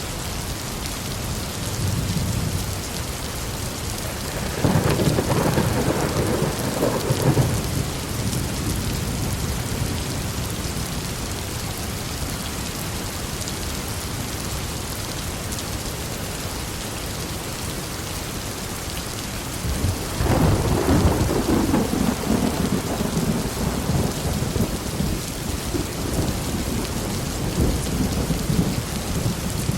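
Heavy rain falling steadily in a thunderstorm, with rolls of thunder rumbling over it: the biggest about five seconds in and again about twenty seconds in, with lighter rumbles between.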